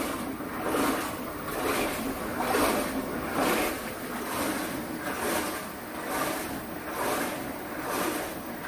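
Water sloshing in a top-load washing machine's tub as the pulsator agitates the wash, swishing back and forth about once a second.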